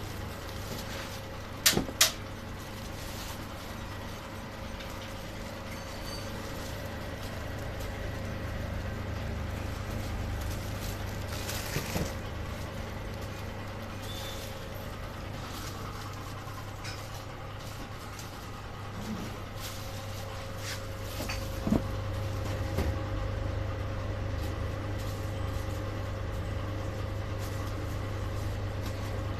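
Shrink-wrap packaging machine running: a steady low hum with a faint whine from its heat tunnel and roller conveyor. Two sharp knocks come about two seconds in, and a few fainter knocks follow later.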